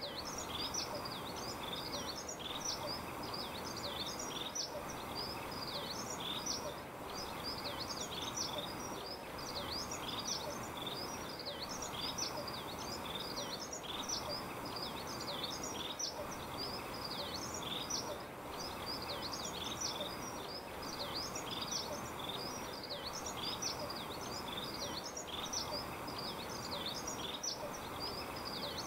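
Small birds chirping busily and without a break, several quick high chirps a second, over a steady background hiss.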